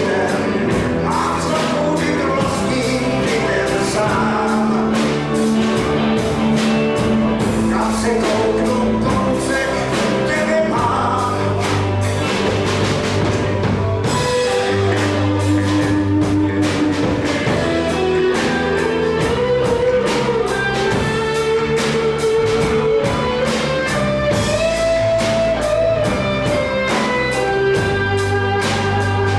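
Live rock band playing: electric guitar, keyboards and drum kit, with a steady beat and sustained, bending lead notes.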